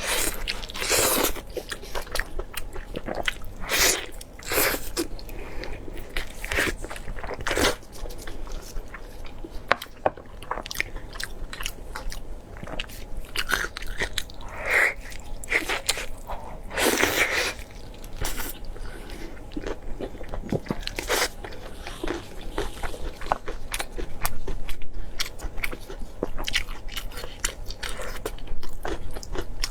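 Close-miked chewing and biting of food, with irregular wet mouth clicks and crunches.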